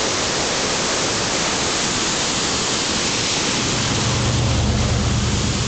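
Kaaterskill Falls in spate after heavy rain, the cascade rushing with a steady, loud roar of water. About three and a half seconds in, a vehicle's low engine hum joins it.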